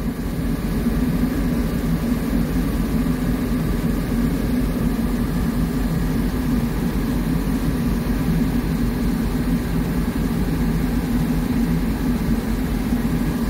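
Diesel locomotive engine idling, a steady low drone heard from inside the cab.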